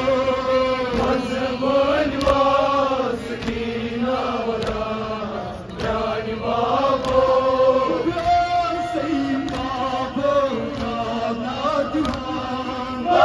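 Kashmiri noha, a Shia mourning lament, chanted by men's voices through microphones and a loudspeaker, with sharp slaps in time with the chant that fit chest-beating (matam).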